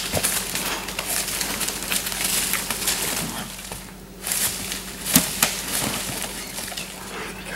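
A whitetail doe, down after an arrow hit, thrashing and kicking in dry leaves and forest litter. The crunching and rustling come in two spells with a short lull between them, with a few sharp cracks. These are the death throes of the shot deer.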